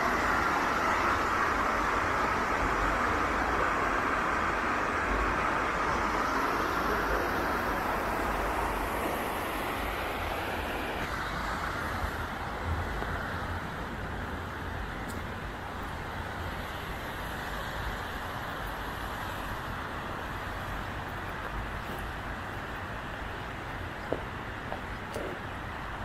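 Motorcycle on the move, heard from the rider's position: a steady wash of engine, tyre and wind noise that slowly grows quieter. A few sharp clicks come near the end.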